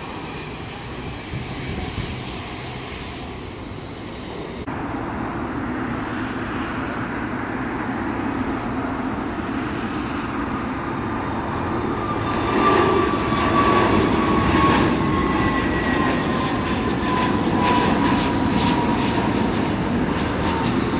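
Airliner jet engines on takeoff: a steady low rumble, then from about twelve seconds in a louder jet roar as a narrow-body twin-jet climbs out. A high whining fan tone falls slowly in pitch over the roar.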